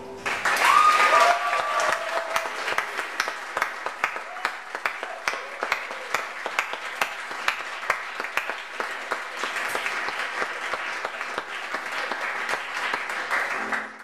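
Audience applauding, loudest in the first two seconds with a short shout of cheering about a second in, then clapping steadily until it cuts off suddenly.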